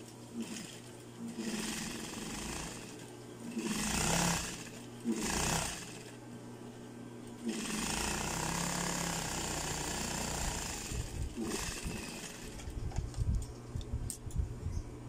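Industrial sewing machine stitching stretch knit fabric, run in several short bursts and then in one longer run of about four seconds. Near the end come irregular clicks and knocks as the fabric is handled at the machine.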